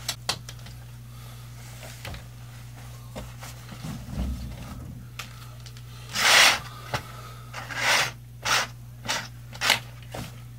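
Curtain panels being slid along a black iron pipe curtain rod, the fabric swishing and scraping: a long, loud swish about six seconds in, then four shorter ones in quick succession. A steady low hum runs underneath.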